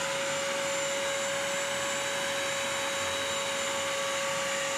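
BISSELL Crosswave wet/dry vacuum running steadily as it sucks up spilled cereal and milk: an even rush of suction with a steady motor whine.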